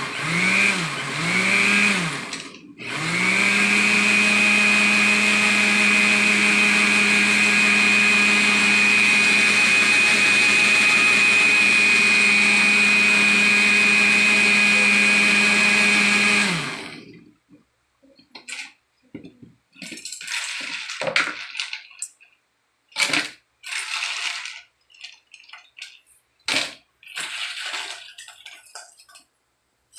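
Countertop blender with a glass jar blending a shake: two short pulses that spin up and down, then steady running for about fourteen seconds before it is switched off. After that, scattered clinks and knocks as the jar is handled and ice is spooned into it.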